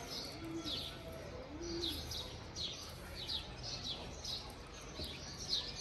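Small birds chirping, short high notes that slide downward, about two a second. Two brief low notes sound in the first two seconds.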